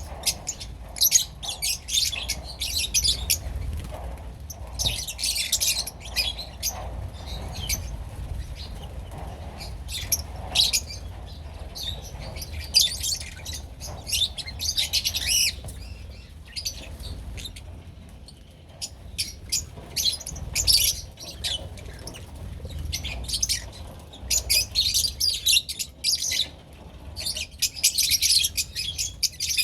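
Lovebirds chattering in repeated bursts of shrill, high chirps, with short pauses between the bursts.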